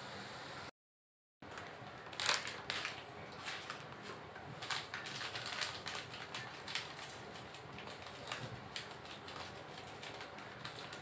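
Dry-roasted peanuts and their loose papery skins clicking and rustling irregularly as they shift in a wire mesh strainer, with a sharper cluster of clicks a couple of seconds in. The sound drops out completely for under a second near the start.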